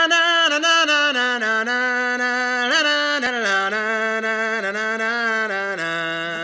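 Opening of a studio rock song: a lone held melody line with no band behind it, moving slowly between a few notes and easing slightly in level toward the end.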